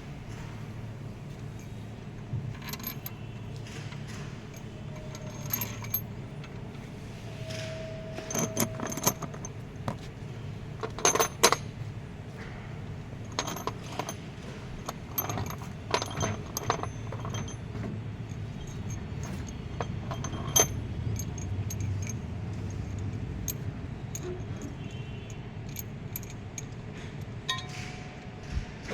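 Metal tools and engine parts clinking and tapping now and then, with a cluster of louder clinks about eleven seconds in, over a low steady hum.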